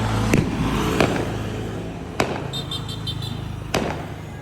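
Fireworks going off: four sharp bangs spread about a second apart over a low, steady rumble, with a brief high twittering in the middle.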